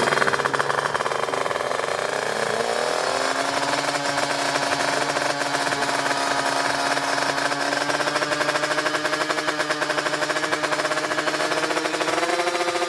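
Tuned Kawasaki Ninja two-stroke drag-bike engine bored to 155cc, running with a fast pulsing beat: its revs fall over the first few seconds, hold steady, then pick up slightly near the end.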